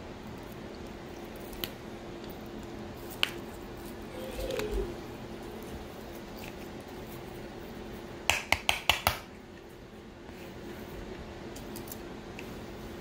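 Eating sounds: scattered sharp clicks of utensils against a dish, then a quick run of about six louder clicks about eight seconds in, over a steady low hum.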